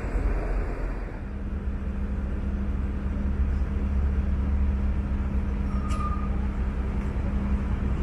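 Large diesel engine running steadily close by, a low drone with a steady hum above it over street noise. There is a short click about six seconds in.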